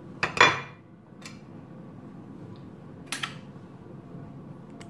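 A serrated kitchen knife knocking and scraping against a ceramic plate while cutting a boiled banana: a loud clink about half a second in, a small tick a second later and another clink about three seconds in.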